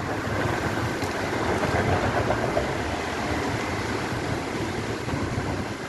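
Steady city street noise from traffic passing on the road close by.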